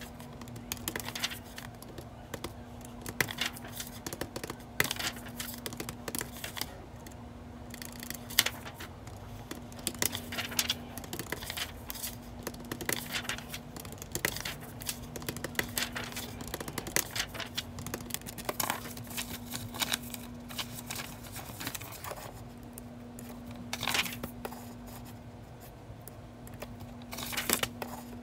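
Sheets of printed paper rustling and sliding on a desk, with scattered short taps from fingers on calculator keys, over a steady low hum.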